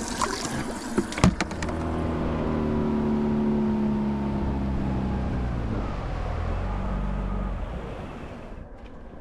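A few sharp knocks in the first second and a half, then a boat's outboard motor running under way, its pitch slowly dropping and the sound fading out near the end as the boat slows.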